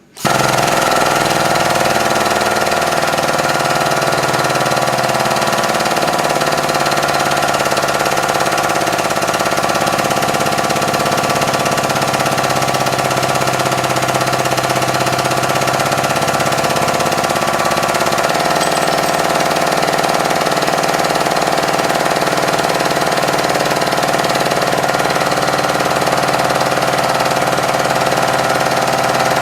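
Hydraulic press's pump motor switching on abruptly and running steadily while the ram presses down on a CO2 cartridge. Its tone shifts slightly about 18 seconds in as the load changes.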